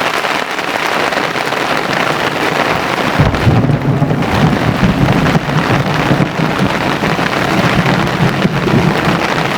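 Heavy rain pouring down in a thunderstorm, with thunder rumbling from about three seconds in.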